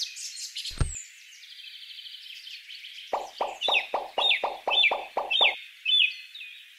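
Birdsong with chirping calls throughout. About a second in there is a single plop as a small clay fruit drops into a woven basket. From about three seconds a bird repeats a call rapidly, about nine notes at four a second.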